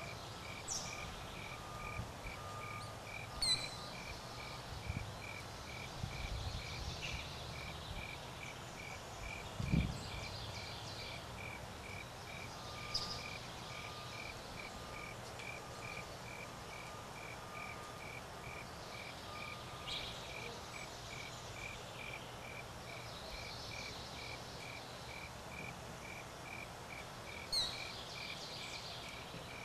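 Cricket chirping steadily, about two chirps a second, against an outdoor background. A few short, high downward-sweeping bird calls come through, and there is a single low thump about ten seconds in.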